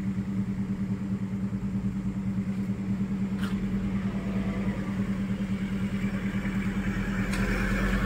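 Idling vehicle engines giving a steady low drone. A deeper bass rumble swells in the last few seconds.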